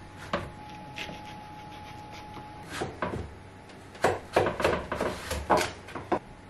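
Kitchen knife chopping a courgette on a wooden chopping board: a few separate knocks of the blade on the wood, then a quick run of about ten chops in the second half.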